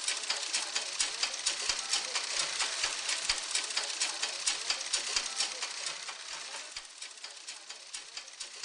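Black mechanical sewing machine running, its needle and shuttle mechanism making a rapid, steady clatter of stitches that fades over the last couple of seconds.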